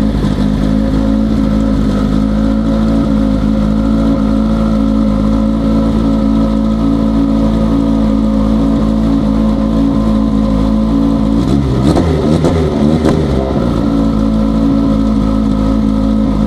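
Ford RS200's 2.4-litre turbocharged BDTE four-cylinder race engine idling steadily. About two thirds of the way through, a brief throttle blip makes the revs swing up and back down with a few sharp crackles, then it settles back to idle.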